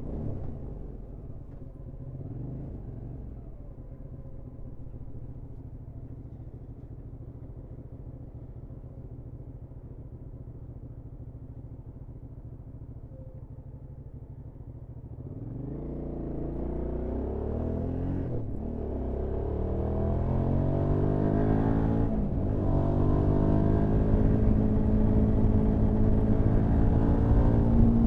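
Hyosung GT650R motorcycle's V-twin engine running at low, steady revs, then accelerating hard about halfway through, its pitch climbing with two brief drops as it shifts up through the gears.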